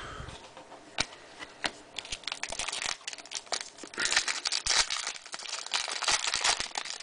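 Foil trading-card pack wrapper being torn open and crumpled by hand: scattered sharp crackles at first, turning into dense crinkling and crackling from about four seconds in until near the end.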